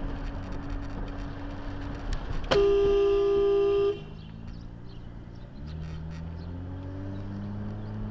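Car horn blown once, held for about a second and a half, at a car crossing into the lane, over steady road noise; afterwards the car's engine climbs in pitch as it accelerates.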